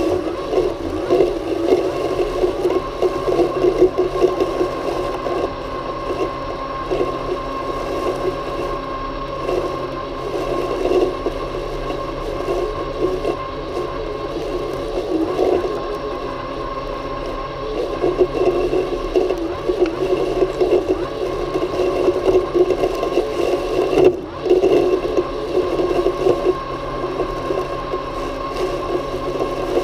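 Worx Landroid M robotic lawn mower running, heard from on board: a steady whine from its electric motors with an uneven rustling scrape over it, and one sharp knock about three-quarters of the way through.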